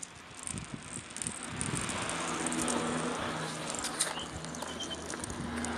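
Glass marbles rolling down grooves carved in a stone boulder, a continuous rolling rumble that grows louder about a second and a half in, with a sharp click about four seconds in.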